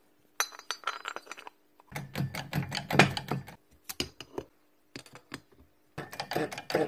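Metal parts of a Makita HM0810T demolition hammer's crank housing clicking and clattering as they are handled and fitted by hand, in uneven bursts with short gaps between.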